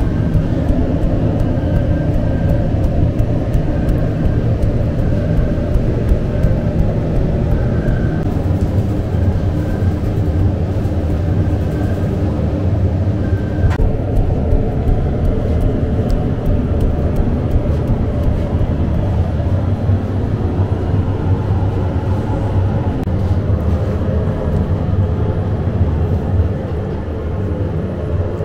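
Loud, steady low mechanical drone of bakery machinery. A faint high tone repeats about once a second during the first half, there is a single sharp click about halfway through, and the drone drops a little near the end.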